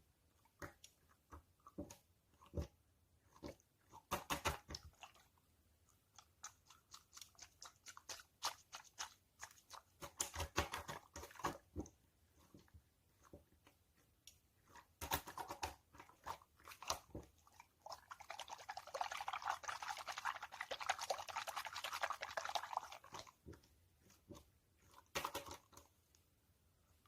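Soft squishy toys squeezed and kneaded by hand close to the microphone, giving scattered sticky clicks and short crackles. A longer run of dense fine crackling comes in the last third.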